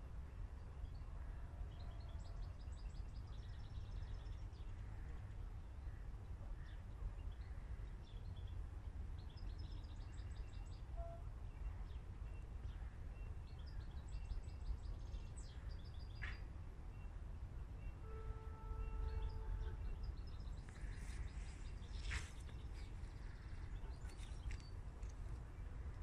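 Eurasian siskin chirping and twittering faintly in short scattered bursts, loudest near the end, over a steady low rumble.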